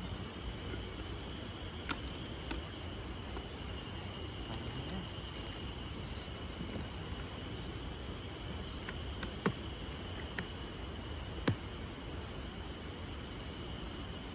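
Outdoor ambience with a steady high-pitched insect drone over a low rumble, with a few sharp clicks scattered through the second half.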